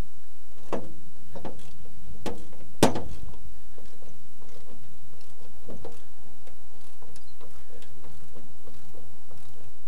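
Box-end wrench clicking on a steel bolt as it turns the fuel filter mounting bolt loose from the firewall. A few sharp metallic clicks come in the first three seconds, the loudest about three seconds in, followed by lighter, irregular ticking.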